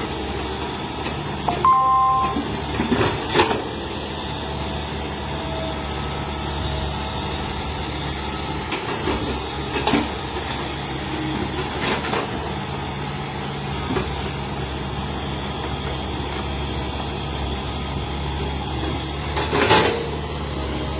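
Hitachi EX110 excavator's diesel engine running steadily, with scattered knocks and clanks from the working machine, the loudest about two to three seconds in and near the end.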